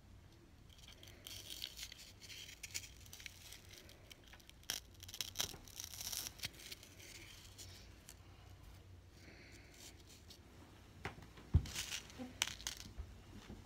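Small metal rose-headed pins being pushed into a green foam block, making soft scratchy crunches and crackles in irregular bursts. A few sharper clicks and a knock come near the end.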